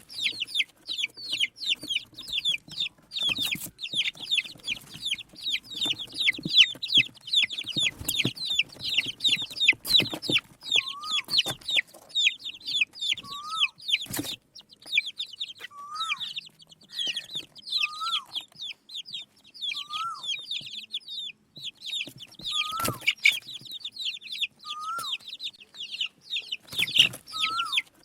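A group of baby chicks peeping constantly: many fast, high, downward-sliding chirps overlapping. From about ten seconds in, a lower, rising-then-falling call repeats about every two seconds, and a few knocks sound now and then.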